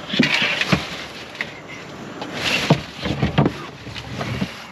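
A dead caiman being hauled out of a plastic cooler: a string of knocks and scrapes as its body bumps and slides against the cooler's sides.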